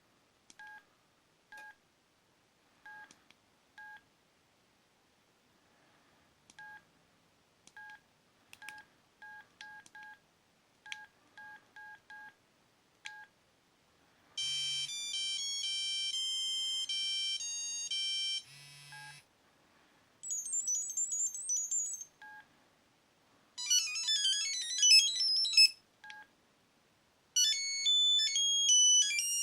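Sony Ericsson T68i mobile phone: a string of short, identical beeps, then four of its preloaded ringtones played in turn. Each ringtone is a bright electronic melody that stops abruptly after two to five seconds, with a single beep between some of them.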